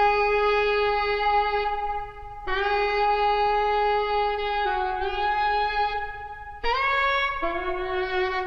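Background film music: a slow line of long held notes on a wind-like instrument, each note sustained for one to two and a half seconds before moving to the next, dipping a little and then leaping up before settling lower near the end.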